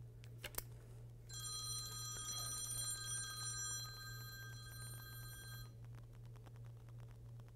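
A telephone ringing: a steady, many-toned electronic ring that starts about a second in and lasts a little over four seconds, over a low steady hum. Just before it, a couple of small clicks as a USB-C power plug is pushed into the laptop board's connector.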